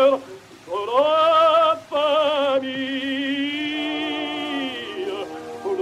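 Bass-baritone voice singing held operatic notes with wide vibrato, the first sliding up into pitch after a short break, on a 1907 acoustic 78 rpm disc. The sound is thin and muffled with a light surface hiss.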